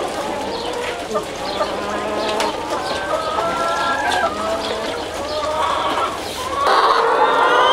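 A shed full of hens in battery cages clucking and cackling together, many calls overlapping. It grows louder near the end.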